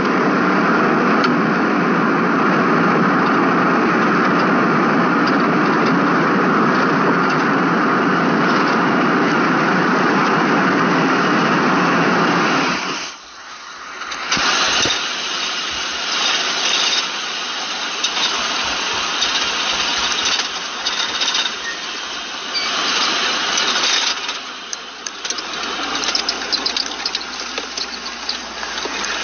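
Cabin noise inside a moving Ford police vehicle: a steady, loud rush of road and engine noise that drops off suddenly about 13 seconds in, followed by quieter, uneven noise with scattered clicks.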